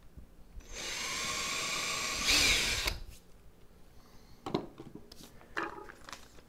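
Power drill with a 1/4-inch bit drilling a mounting hole in the wall, running steadily for about two seconds and getting louder as the bit bites, then stopping. A couple of light knocks follow.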